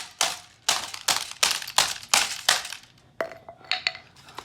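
A hammer repeatedly smashing a laptop, about three hard blows a second. After about two and a half seconds the blows give way to a few lighter clinks with a brief metallic ring.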